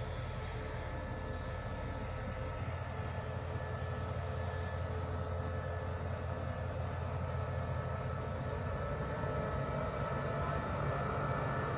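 SRT QSY-class diesel-electric locomotive moving slowly toward the listener at walking pace: a steady low engine hum with a constant whine, growing gradually louder as it comes closer.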